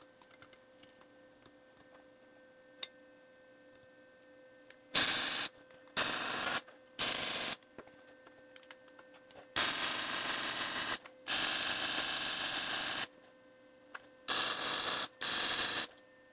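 Lincoln Electric MIG welder laying short stitch welds on a steel tractor grill guard: seven bursts of arc noise, each half a second to two seconds long, starting about five seconds in. A faint steady hum sounds between the bursts.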